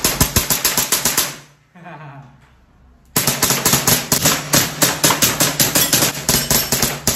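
Two WE M92 Beretta-style gas blowback airsoft pistols fired in rapid succession together, a fast string of sharp cracks with the slides cycling. One string of about a second and a half, a pause, then a longer string of about four seconds.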